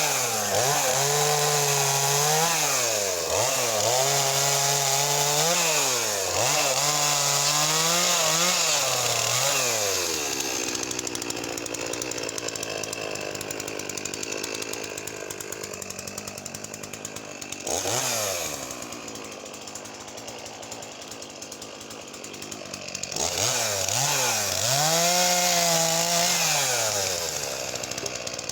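Makita DCS4610 45cc two-stroke chainsaw run up to full throttle and held there three times in quick succession, cutting discs off a log, then dropping to idle for several seconds. There is a short blip of throttle, and one more full-throttle run near the end.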